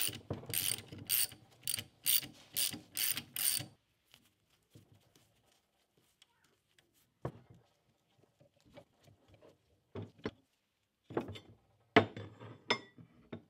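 Socket ratchet wrench clicking in a run of about eight quick back-strokes, roughly two a second, as the nut comes off a leaf spring's centre bolt. After that come scattered light clicks and a few knocks of handling near the end.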